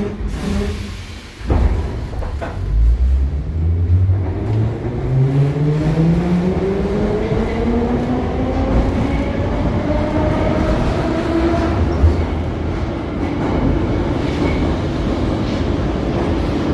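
Interior of an 81-717.5A metro car pulling away: a couple of knocks as it starts off, then the whine of its DC traction motors rising steadily in pitch as the train accelerates. It levels off into a steady run with wheel and rail rumble, and there is one sharp knock near the end.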